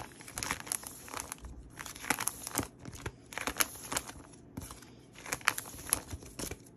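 Plastic pocket pages of a trading-card binder being flipped over one after another, crinkling and rustling with many quick, irregular crackles.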